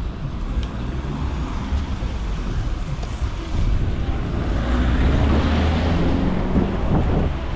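A car driving past, its engine rumble and tyre noise swelling about halfway through.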